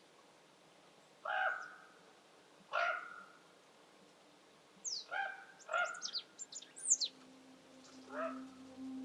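Birds calling: short pitched calls, twice with pauses between them, then four in quick succession, then once more near the end, with thin, high, falling notes mixed in among the quick run. Soft music fades in near the end.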